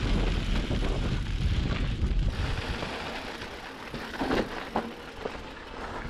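Mountain bike riding on a dirt and rock trail: wind rumble on the helmet-mounted camera's microphone and tyre noise, easing off about two and a half seconds in, followed by a few short knocks from the bike.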